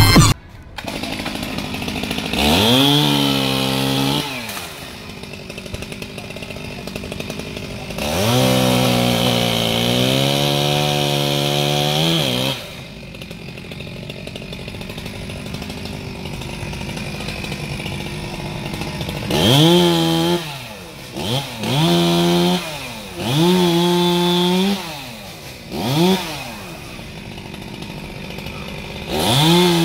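Chainsaw engine idling and revving up to full throttle again and again: two longer runs at high speed, then a string of short revs in the last third.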